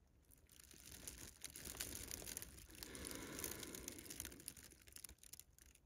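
Faint rustling and crinkling of a person shifting in a jacket on leaves and soil, swelling a little in the middle and fading out near the end.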